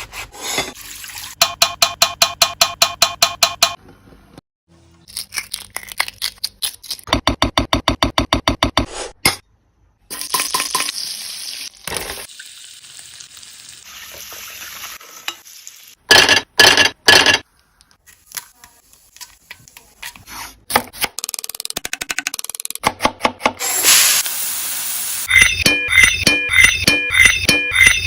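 Kitchen cooking sounds cut together: runs of rapid, even knocks and stirring, oil sizzling in a pan, and music with a regular beat near the end.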